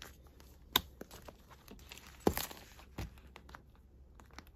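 Paper and plastic planner items being handled: quiet rustling and crinkling with a few sharp clicks, the loudest a little over two seconds in.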